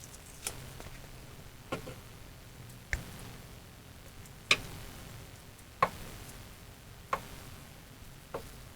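A series of sharp single taps or ticks, about one every second and a quarter, over a faint low hum.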